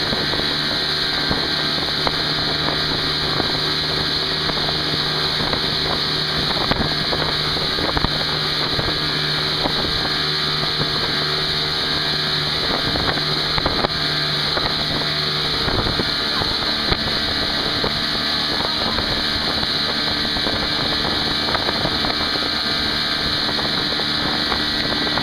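Motorboat engine running steadily at towing speed, with the rush of water in the wake and wind on the microphone.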